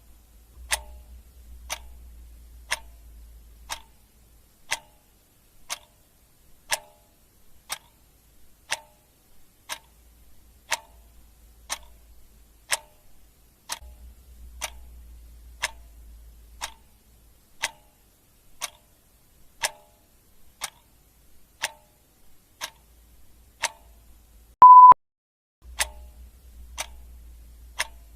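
Clock ticking steadily, one tick a second, with a faint low hum coming and going underneath. Near the end a single short, loud beep at one steady pitch cuts in, louder than anything else.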